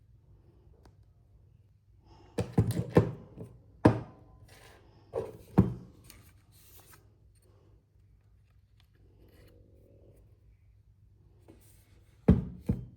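Sharp clicks and knocks from a hard tool casing and its parts being handled, in a few short clusters: a quick run about two seconds in, single knocks a little later, and a last pair near the end.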